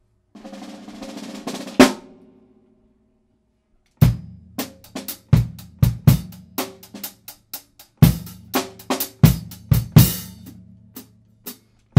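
Drum kit music. A rising rush ends in a sharp crash just under two seconds in, and after a short silence a snare and bass drum beat starts up about four seconds in.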